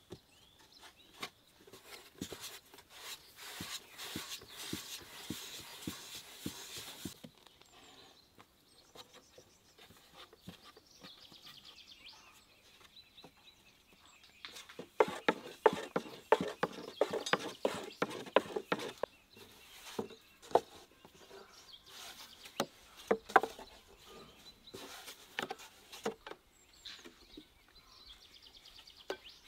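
Hands working lavash dough on a floured wooden board: scattered soft taps and pats, with a dense run of patting and knocking about halfway through. Birds chirp faintly in the background.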